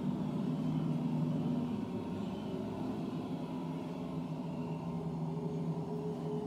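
Ambient background music of sustained low droning tones, its held notes changing twice.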